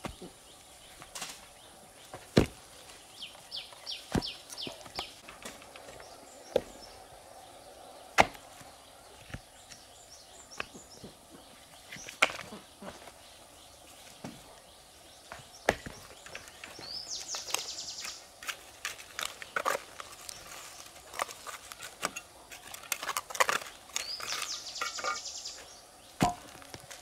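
Irregular sharp knocks and taps of manual building work, the two loudest a couple of seconds in and about eight seconds in. Several short, high, rapid rattles break in between them.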